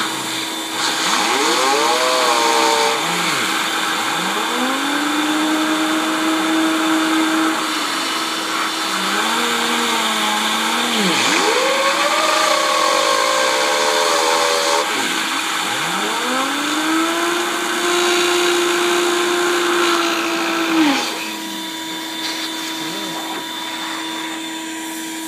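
A young boy imitating an air-raid / tornado siren with his voice: about five slow wails, each rising, holding and then falling away, over a steady hum.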